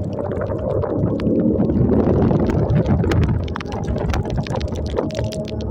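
Motorcycle running steadily through heavy rain on a flooded road: a low engine hum under the rush of wind on the microphone and tyres splashing through water, with many small sharp taps of raindrops striking close by.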